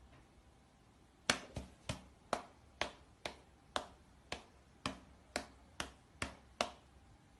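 A series of about a dozen sharp clicks or taps, two to three a second, starting about a second in and stopping shortly before the end.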